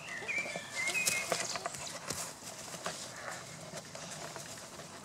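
Rustling and irregular soft knocks of a dog and a cat play-wrestling in grass close to the microphone. Birds chirp in the background during the first second or so.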